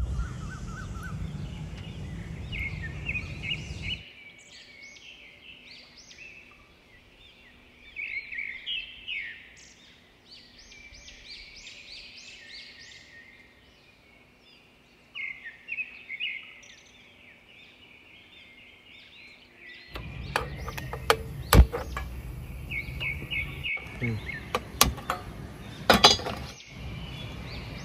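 Small birds chirping repeatedly over steady background noise. In the last several seconds come a few sharp knocks of metal cookware being handled on a stove.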